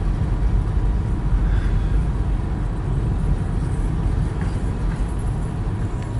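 Freight train cars rolling across a grade crossing, a steady low rumble heard from inside a car.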